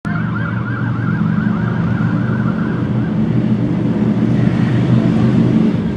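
Emergency vehicle siren in a fast yelp, about three or four sweeps a second, fading out about halfway through, over a steady low engine hum.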